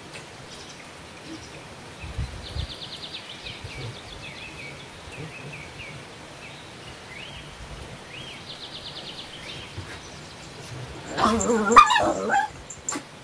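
A dog barking briefly about eleven seconds in, the loudest sound. Before it, faint high chirps and quick trills in the background.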